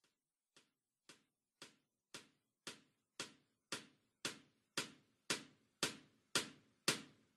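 Evenly spaced percussive ticks, about two a second, fading in from near silence and growing steadily louder, as the ticking intro of a music track.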